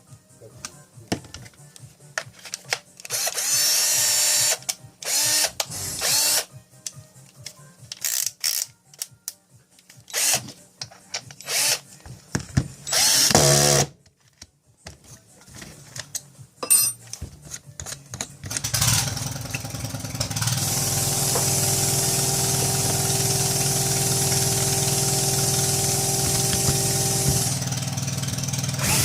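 Cordless drill/screwdriver motor triggered in several short bursts, some winding up and down in pitch, then run steadily for about eight seconds near the end.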